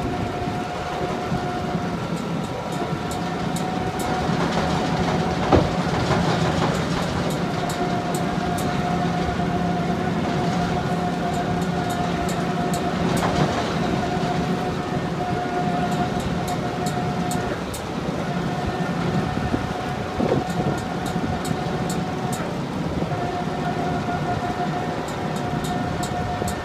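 Komptech Crambo slow-speed, high-torque wood grinder running steadily under load as it breaks up a big chunk of pine, a continuous mechanical drone with a steady whine. A few sharp cracks and knocks of wood breaking stand out, the loudest about five seconds in.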